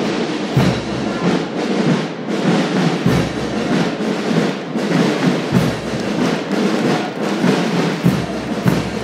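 School marching band playing a march, drums beating a steady rhythm under the band.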